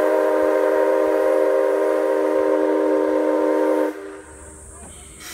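Whistle of the C12 class steam locomotive C12 167 blowing one long blast of several tones sounding together. It cuts off about four seconds in, leaving a quieter hiss and low rumble.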